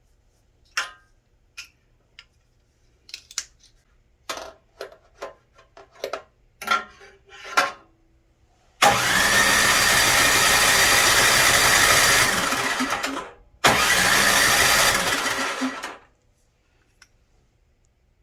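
A run of clicks and knocks, then the snowblower's engine is turned over twice in loud, steady bursts. The first lasts about four and a half seconds and the second about two, and each cuts off suddenly.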